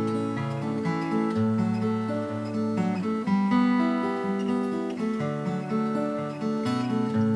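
Acoustic guitar played solo: strummed chords, with the bass notes moving underneath.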